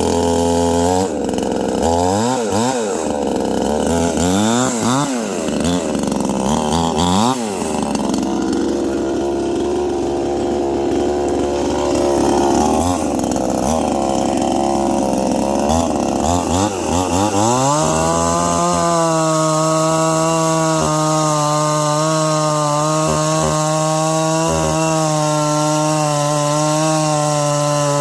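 Brand-new Hessen Promaster 5220 52cc two-stroke chainsaw running and being revved: several quick throttle blips up and down, then a steadier lower run, then a little over halfway through it climbs to a high speed and holds there steadily.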